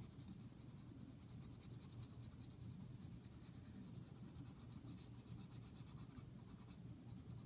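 Faint scratching of a pencil on paper as an area of a drawing is shaded in.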